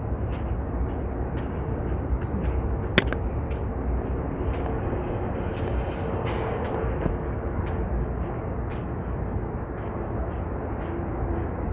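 Steady outdoor street noise with a low rumble, like passing traffic, and scattered light clicks, one sharper click about three seconds in.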